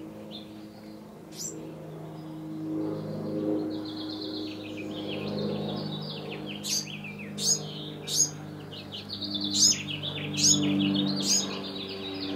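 Songbirds chirping and singing: quick high notes grow busier after a few seconds, with sharp, louder calls about once a second in the second half. A steady low hum runs underneath.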